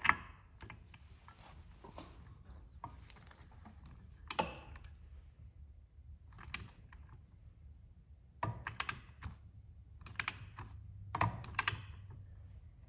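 Click-type torque wrench on a 22 mm variator pulley nut being tightened to 69 foot-pounds: scattered sharp metallic clicks in small clusters, more frequent and louder in the last few seconds.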